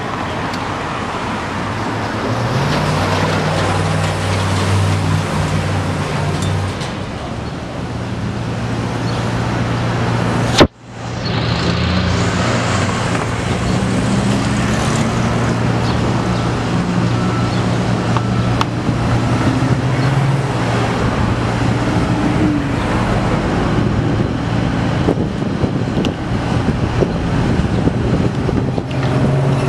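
Street traffic: a city bus's engine hum as it pulls away, then cars and buses passing steadily. A sharp click with a brief dropout comes about ten seconds in.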